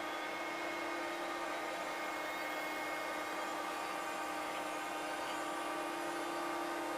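Quantel HAL Express video compositing system running just after power-on: a steady machine hum and fan noise with a constant mid-pitched tone, while it boots.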